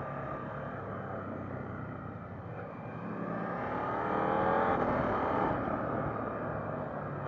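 KTM 890 Duke GP's parallel-twin engine running under way. About three seconds in its note rises in pitch and grows louder as the bike accelerates, then drops back about two seconds later.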